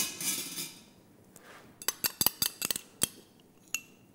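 A metal spoon clinking against a small glass of mustard. A brief scrape comes at first, then a quick run of light clinks about two seconds in and one more near the end.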